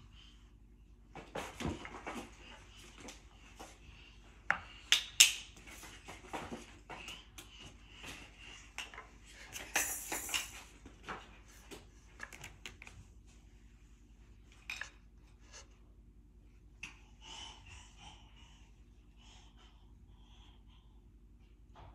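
Small wooden toy pieces clacking and knocking as a toddler handles them: irregular clicks, with a few louder clatters around five and ten seconds in.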